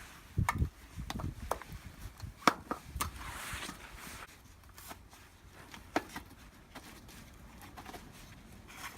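Can opener working on a tin can of corn: a run of clicks, knocks and scrapes over the first few seconds, then fainter scattered clicks.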